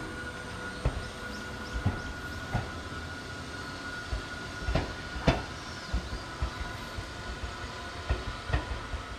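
Hakone Tozan Railway Moha 1 electric railcar pulling slowly away over the points, its wheels giving irregular sharp clacks over the rail joints and switch above a low running rumble. The loudest clack comes about five seconds in.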